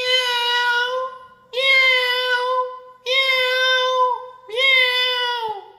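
A person's voice imitating a cat, giving four long, high-pitched meows, each held steady for about a second and dropping in pitch at the end.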